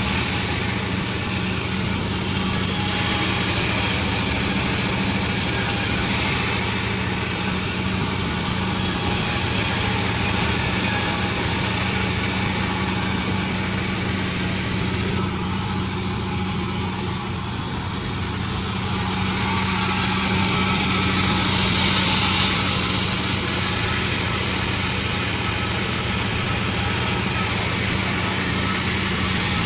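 Sawmill machinery running steadily: a constant engine-like drone with a steady hum and a hiss through the upper range, which dips slightly for a few seconds around the middle.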